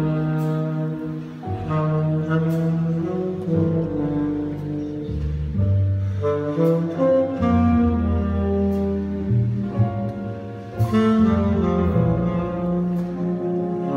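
Jazz orchestra playing a slow piece, with saxophone prominent over held chords and a double bass line. Thin sharp accents fall every couple of seconds.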